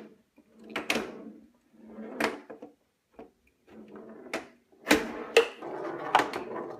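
Wooden flippers of a homemade, purely mechanical pinball machine clacking as they are flicked, knocking a metal ball that rolls and rattles across the plywood playfield. A series of sharp wooden knocks, coming faster in the second half.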